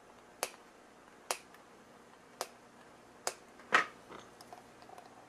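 A handful of sharp, separate clicks about a second apart, the loudest a little after halfway, followed by fainter ticks, from hands handling a small amplifier circuit board and tools at a workbench.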